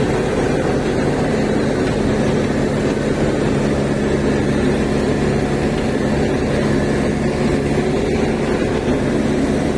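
Heavy machinery's diesel engine running steadily at a constant pitch.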